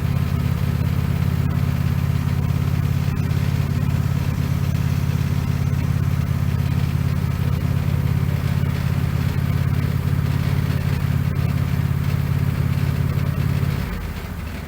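Wood-Mizer LX150 bandsaw mill's engine running steadily at a constant speed, then dropping away sharply near the end.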